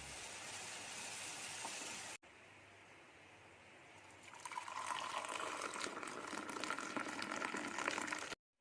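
A steady hiss for about two seconds, then after a cut, tea being poured into a cup, a splashing, filling sound that stops abruptly near the end.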